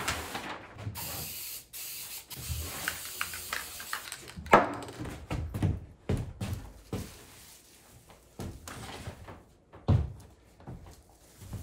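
Aerosol can of spray adhesive (3M Super 77) hissing for about three seconds, then a sharp knock and a run of light clunks and knocks as the can is set down and the work is handled.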